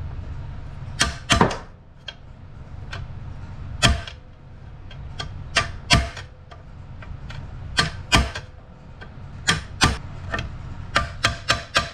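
Hammer blows on a chisel against a stuck bolt head, cutting notches to get a grip on it: sharp metallic strikes with a short ring, coming at irregular intervals, some in quick pairs.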